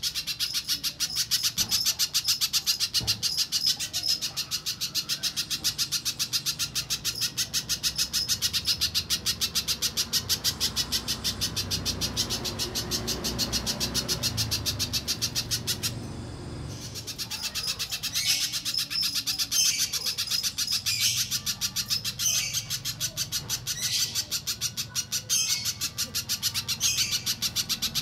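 Spiderhunter call recording used as a lure: a fast, even run of sharp, high repeated notes. About 16 s in it breaks off briefly, then comes back as spaced bursts of notes.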